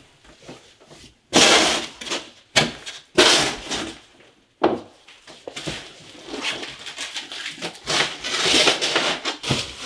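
Plastic wrapping on framed pictures crinkling and rustling as the frames are handled and moved. It comes in several loud bursts, with a sharp knock about four and a half seconds in, and a steadier rustle after that which grows near the end.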